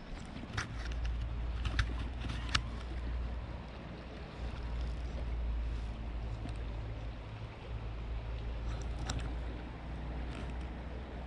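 Wind rumbling on the microphone over running creek water, with a few short sharp clicks, most of them in the first three seconds and another cluster about nine seconds in.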